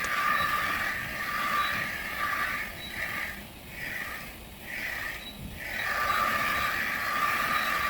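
Smart toilet's bidet wash running: a hiss of spraying water with a steady whine under it, swelling and fading about once a second and quieter through the middle as the spray rod is moved front and back.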